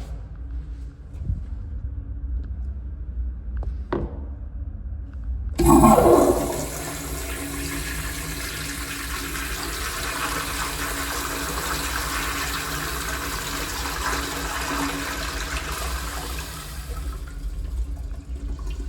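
An early-1950s Standard restroom fixture flushing. A sudden loud rush of water starts about five and a half seconds in, runs steadily for about ten seconds and tapers off near the end. A faint click comes shortly before the flush.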